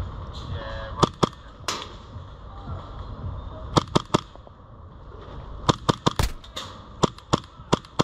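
Airsoft guns firing: about a dozen sharp, short cracks in irregular clusters of two to four shots.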